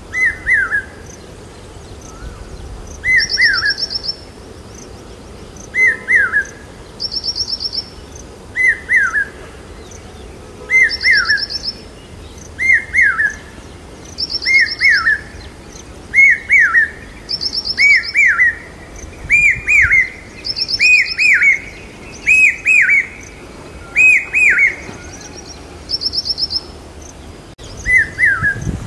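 Common hawk cuckoo (brain fever bird) repeating its loud three-note call. The phrases come faster and climb in pitch and loudness, break off, then start again lower near the end. A second bird's short high trill alternates with the calls.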